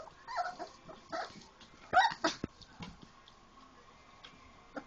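Four-week-old Labrador retriever puppies yipping and whimpering as they play: a few short, high calls that bend in pitch, the loudest pair about two seconds in, with small clicks between them.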